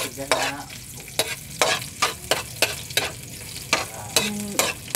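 Spatula scraping and clacking against a wok about twice a second as chopped garlic and onion sauté in hot oil, with a steady light sizzle beneath.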